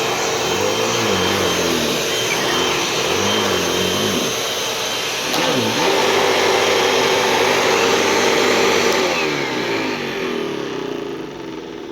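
Hoover Rewind Elite bagless upright vacuum cleaner running with a steady high whine, the pitch of its lower hum wavering up and down. About nine seconds in, it winds down and fades as the motor is switched off.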